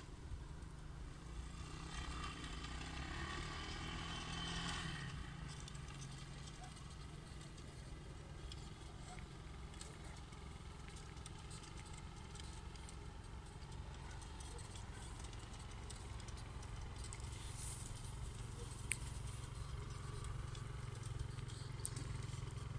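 Bashan 200cc quad's engine running in the distance, getting louder over the last several seconds as the quad comes down the hill toward the microphone.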